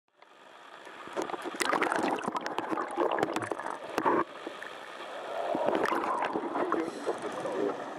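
Rising air bubbles heard underwater, a crackling, gurgling rush in two long surges with a short lull between them, typical of a scuba diver's exhaled bubbles.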